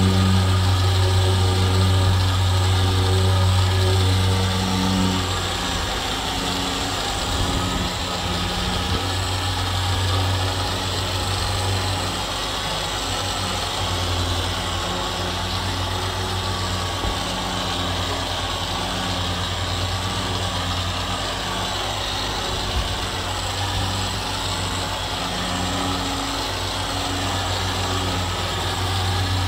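An engine idling steadily with a low hum. It eases off a little about five seconds in.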